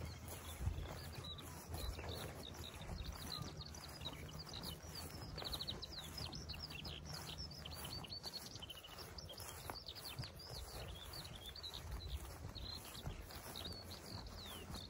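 Small birds chirping in quick, high, sliding notes, many calls overlapping throughout, over a low steady background rumble.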